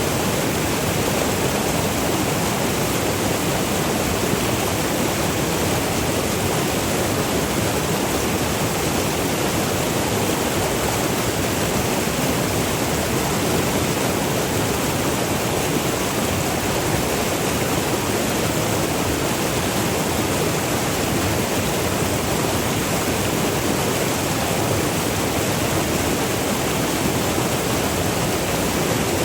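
Virgin River water rushing and splashing over small falls, a steady, unbroken roar of noise.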